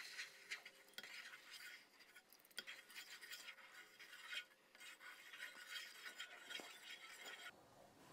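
Wooden spatula stirring pomegranate juice and sugar in a pot, a faint, irregular scraping and swishing as the sugar is dissolved into syrup. It stops about seven and a half seconds in.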